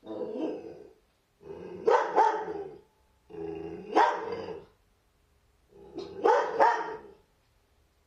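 Dog giving four drawn-out, bark-like yowls in a row, each about a second long, with pitch that rises and falls within each call.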